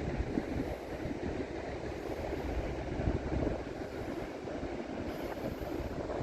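Wind buffeting the microphone: a constant, gusty low rumble.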